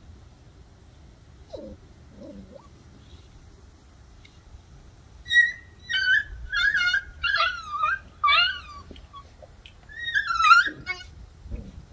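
Puppy whining and yelping in a string of short, high-pitched, wavering cries starting about five seconds in, with a longer whining cry near the end.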